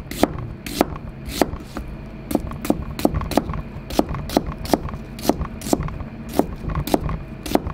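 Kitchen knife thinly slicing an onion on a plastic cutting board, giving steady crisp taps of the blade on the board about three times a second.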